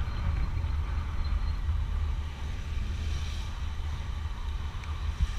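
Honda SH150i scooter riding along a city street: a steady low rumble of wind on the microphone over the running single-cylinder engine and tyre noise.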